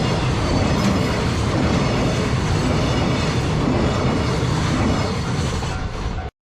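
Freight train rolling past close by: a loud, steady rumble and clatter of wheels on the rails. The sound cuts off abruptly near the end.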